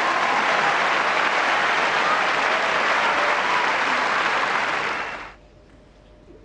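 Tennis crowd applauding after a point: steady clapping that dies away about five seconds in.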